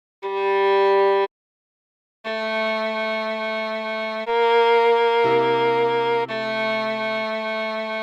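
Viola melody played slowly: one short note, a pause of about a second, then held notes that change about once a second over lower sustained notes.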